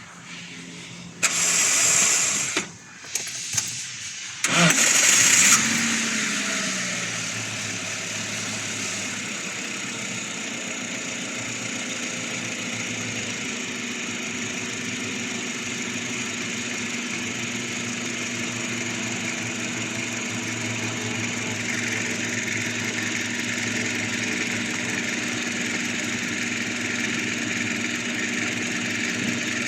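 Toyota Hiace van engine cranked by its starter in two short tries, catching on the second about five seconds in. It revs briefly, then falls back to a steady idle.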